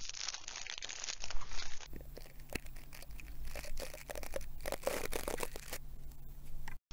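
Clear plastic pen sleeve being crinkled for about two seconds. Then toothbrush bristles are brushed over a handheld recorder's microphones in an ASMR clip: irregular scratchy strokes over a low steady hum.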